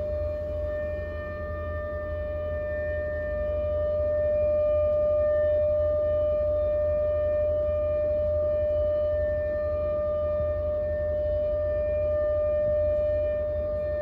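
Civil defence siren sounding one long, steady tone that does not rise or fall, over a low rumble. It is the Korean Memorial Day siren sounded at 10 a.m. as the signal for the minute of silent tribute.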